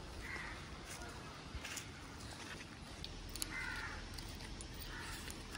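Crows cawing faintly a few times, the longest and loudest call about three and a half seconds in.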